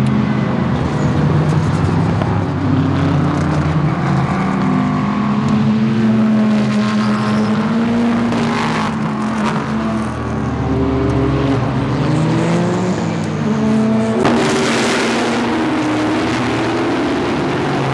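IMSA race cars, both prototypes and GT cars, passing one after another at speed, several engines overlapping with their notes gliding up and down as each goes by. From about fourteen seconds in the sound turns suddenly louder and harsher, with more hiss.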